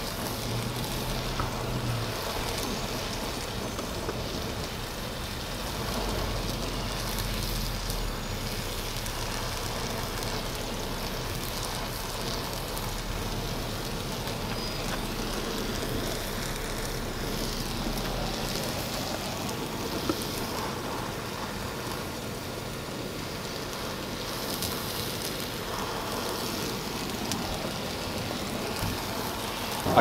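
Oxy-acetylene torch flame hissing steadily while it heats copper tubing for brazing.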